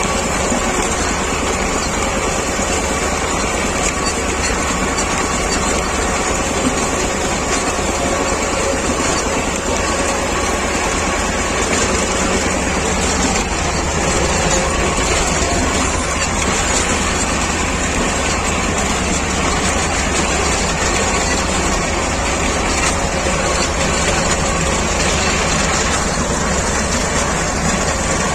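A T-25 tractor's two-cylinder air-cooled diesel running steadily while it mows.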